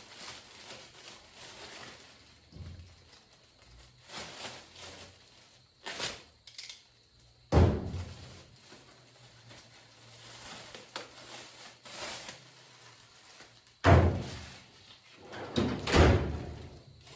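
Steel tool chest drawers and parts being handled, with sudden metal knocks and bangs: softer thumps in the first half, then three loud bangs, about halfway through and twice near the end.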